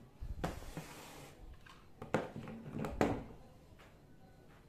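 Plastic corner clamps knocking and clattering as they are handled and set down on a wooden bench top: a few separate knocks, the loudest about two and three seconds in.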